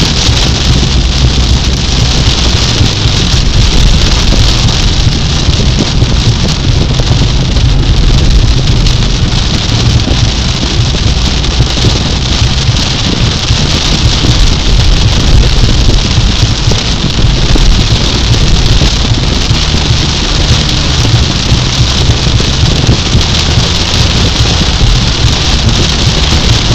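Car driving through a heavy rainstorm, heard from inside the cabin: a steady hiss of rain on the windshield and roof over a deep, continuous rumble of road and engine.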